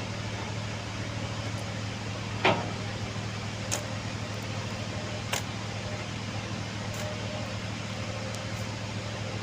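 Excavator's diesel engine running steadily with a low hum, with one loud metallic clank about two and a half seconds in and a few fainter knocks after it.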